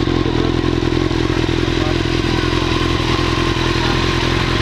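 Honda CBR929RR Fireblade's inline-four engine idling steadily, holding an even pitch with no revving.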